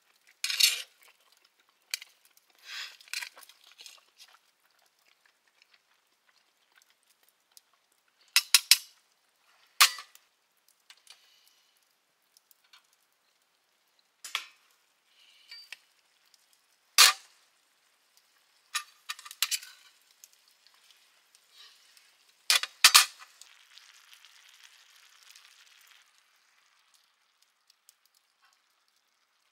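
Metal cookware and utensils clanking and scraping in separate sharp strokes, with a soft sizzling hiss for a few seconds after the last loud clank.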